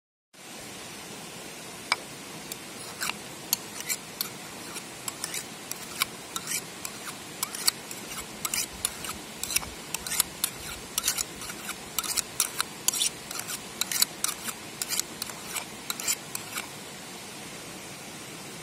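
A thin metal blade scraped in quick, sharp strokes against the edge of a small ceramic pot. The strokes stop a couple of seconds before the end, over the steady rush of a creek.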